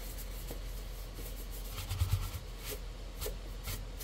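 Bristle paintbrush sweeping dust off a loudspeaker's woofer cone and rubber surround: scratchy brushing strokes, with a few soft low bumps about two seconds in, over a steady low hum.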